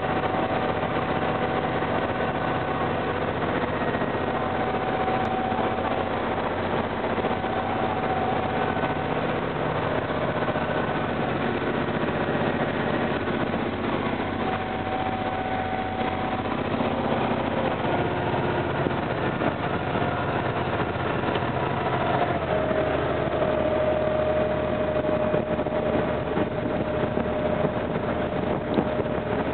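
A river boat's engine running steadily under a wash of noise, its note shifting to a new steady pitch about three-quarters of the way through.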